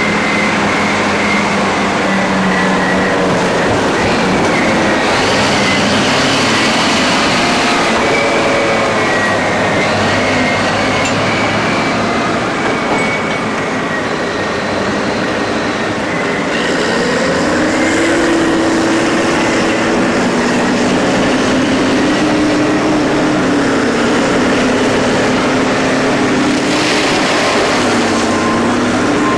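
Diesel engine of a Caterpillar 777 off-highway haul truck running as it drives across the quarry floor, its pitch rising and falling with the throttle and a steady higher whine on top.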